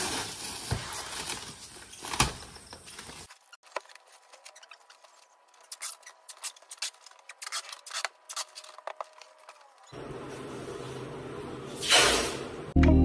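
Packing noises: plastic stretch wrap crinkling and rustling as it is wound round cardboard-wrapped furniture, then a run of light, scattered clicks and taps, and a short louder rustle near the end.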